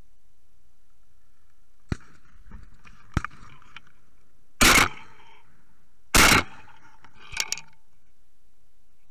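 Shotgun fired twice, about a second and a half apart, with a few small mechanical clicks of gun handling before and after the shots.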